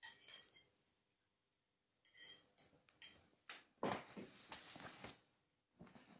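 Quiet scratching and rustling on a fabric suitcase, in irregular short bursts, with one sharp click near the middle.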